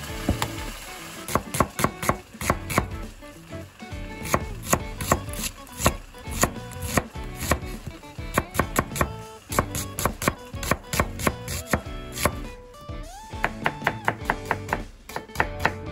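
Kitchen knife chopping diced slab bacon and then slicing onion on a plastic cutting board: quick, uneven runs of sharp knocks of the blade on the board, several a second.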